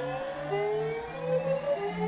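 Synthesized alternate Emergency Alert System–style alarm tone: overlapping pitch sweeps that rise again and again, about two a second, over a steady low drone.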